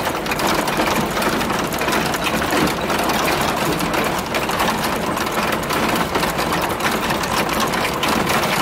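Car running over a rough, rocky dirt road, heard from inside the cabin: engine noise mixed with constant rattling and knocks as the body and suspension jolt over the ruts.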